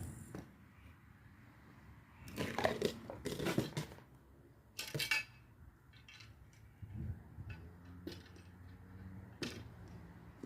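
Metallic clinking and rattling in a few short bursts, with a faint low hum underneath, just after the chainsaw engine stops.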